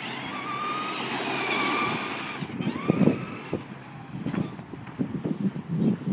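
Traxxas Monster Mutt electric RC monster truck passing close by at speed, its motor whining and then fading away about two and a half seconds in. Irregular low thumps and rustles follow.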